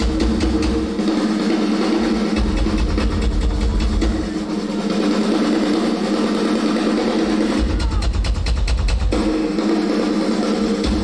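Live hard-rock drumming over a held chord. Fast bass-drum runs come in bursts, and a quick flurry of hits about eight seconds in is followed by a brief break in the chord.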